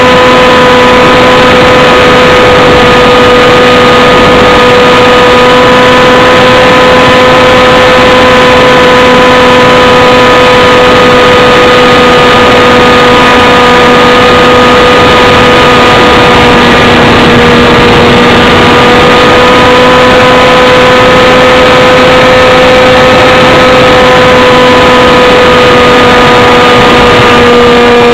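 Loud, steady drone of a small aircraft's motor and propeller, heard from a camera mounted on the airframe. The pitch holds nearly constant, sagging slightly about two-thirds of the way through.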